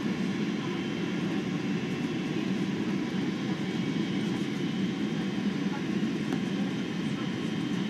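Steady cabin noise inside a Boeing 767 airliner on approach to landing: engine and airflow noise heard from a passenger seat, an even low rumble with a faint steady whine above it.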